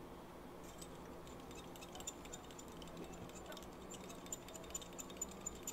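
Faint, even ticking about three times a second over a low steady hum.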